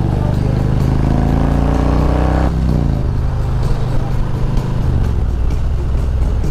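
Harley-Davidson Road Glide's V-twin engine through Rinehart true dual headers, accelerating with rising pitch. About two and a half seconds in, the revs drop suddenly, and the engine then runs on lower and steadier.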